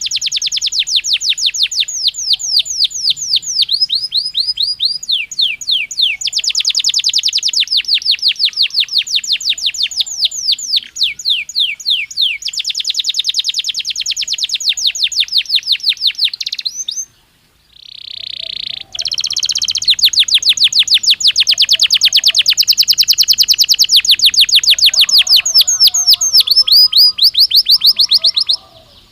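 Belgian canary singing: long runs of fast, rapidly repeated trilled notes, broken by a pause of about two seconds a little past halfway before the song resumes.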